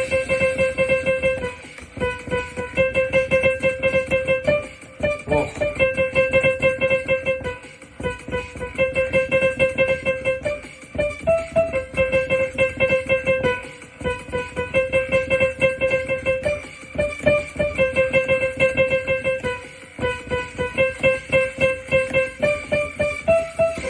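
Music: a keyboard tune of quick repeated notes on one main pitch, in phrases about three seconds long with short breaks between them.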